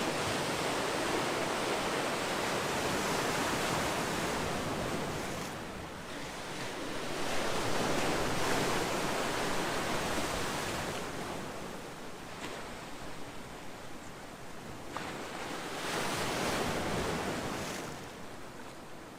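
Ocean waves washing on the shore in slow surges, swelling and falling back about three times, with steady surf hiss between.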